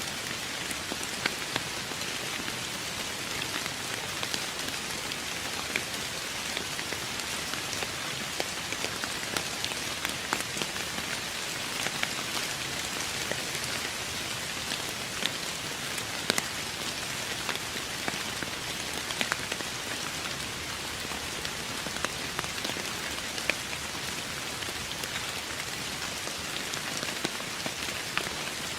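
Steady rain falling on a surface: an even hiss with scattered louder drop ticks.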